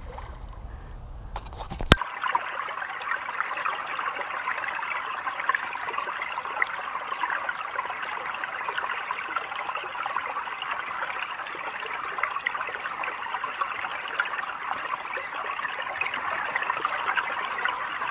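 A steady, even trickling noise like running water starts abruptly with a sharp click about two seconds in. It follows a short low rumble.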